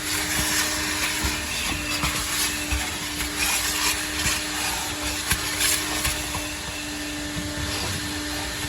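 Coin-operated car-wash vacuum running steadily with a hum, its hose nozzle sucking at the car's interior, with light knocks and rubs as the nozzle works over the surfaces.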